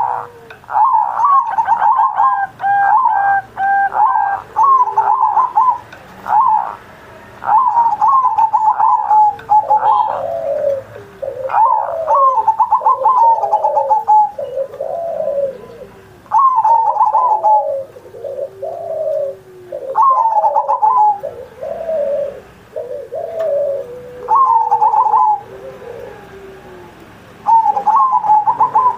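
Zebra dove (perkutut) singing its cooing song in repeated phrases of one to three seconds with short pauses between them. Lower curved coos run alongside the phrases through the middle stretch.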